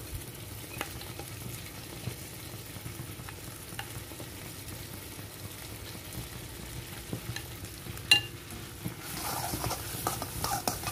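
Vegetables sizzling gently in a pan while thick sauce is scraped in from a bowl, with soft ticks of the spoon. One sharp clack about eight seconds in, then a metal spoon stirring and scraping in the pan near the end.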